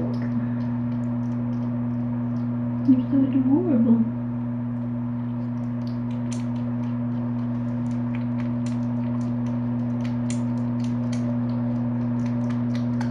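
Steady electrical hum with two low tones. A short, wavering murmur of a voice comes about three seconds in, and light scattered clicks and ticks follow through the second half.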